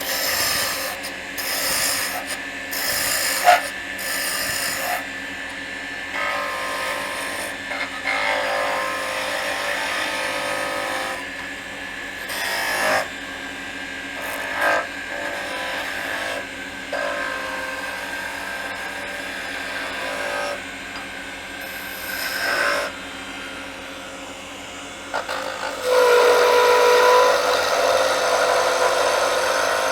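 Wood lathe spinning a cherry blank as a turning tool takes peeling cuts, shaving wood off in repeated scraping passes of a few seconds each over the machine's steady hum. A louder pass near the end carries a steady whining tone.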